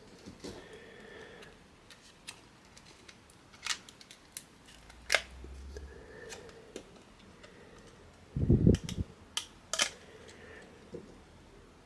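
Scattered small clicks and taps of computer parts and tools being handled, with a brief cluster of heavier knocks about eight and a half seconds in.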